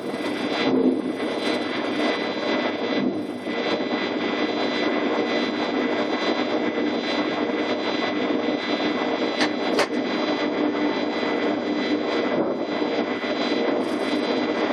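DB Class 420 S-Bahn electric multiple unit heard from its cab while creeping slowly into the workshop: a steady drone and whine of its running equipment, with fixed high tones over it. There is a short sharp sound about ten seconds in.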